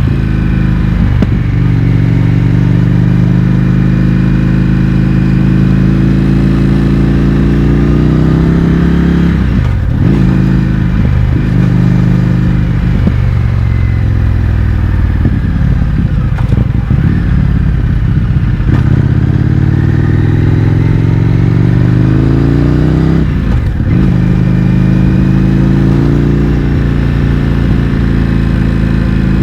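Indian FTR 1200's V-twin running loud through an Akrapovic exhaust with the baffles removed, under way. The engine note climbs steadily, drops sharply about ten seconds in, wavers through several short dips, then builds again, with another sharp drop about five seconds before the end.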